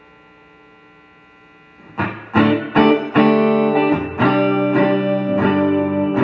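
Collings I-35LC semi-hollow electric guitar played through a Fender tube combo amp: a faint amp hum for about two seconds, then a run of strummed chords, each left ringing.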